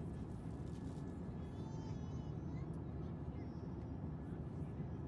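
Steady cabin noise of an Airbus A350-900 in flight: an even, low rumble of engines and airflow.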